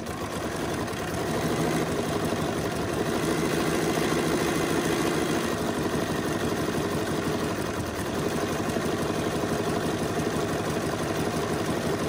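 BERNINA sewing machine running at a steady speed, its needle stitching a zigzag over a wire laid along the edge of a fabric leaf.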